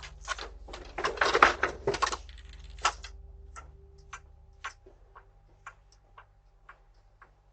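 A dense run of knocks and rattles in the first two seconds, then single sharp clicks or taps about every half second that grow fainter, over a faint steady electrical hum.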